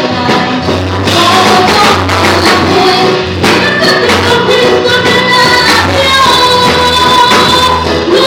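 Live gospel music played loud through a PA: a woman singing into a microphone over a band with drum kit and keyboard, with a choir singing along.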